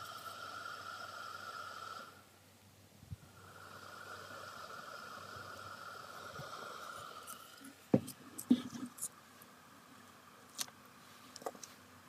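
Small 12 V DC fan inside a PVC-pipe fan heater running with a steady high whine, which drops out briefly about two seconds in and stops about seven seconds in. Then come a few sharp clicks and knocks from handling the unit and its clip leads.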